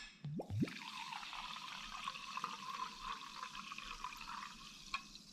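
Sparkling mineral water poured from a glass bottle into a stemmed glass, a steady splashing, fizzing pour that tails off about four and a half seconds in, with a small click near the end.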